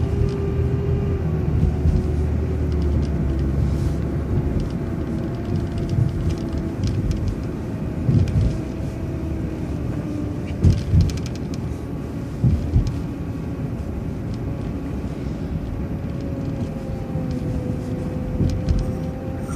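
City transit bus driving along, its engine and drivetrain running with a steady rumble and a faint whine that slowly rises and falls in pitch. A few short thumps come partway through.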